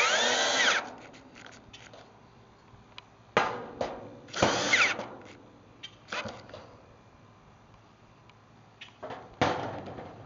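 Cordless drill/driver running sheet-metal screws into the air-conditioner condenser's top panel in several short runs, its motor whine rising and falling in pitch with each screw.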